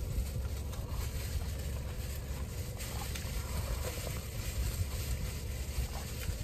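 Steady low rumble inside a car's cabin, with a faint even hiss of rain on the car and a few light ticks.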